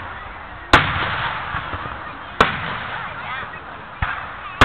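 Aerial firework shells bursting overhead: three loud booms about a second and a half apart, each fading out slowly, with a softer thump just before the last.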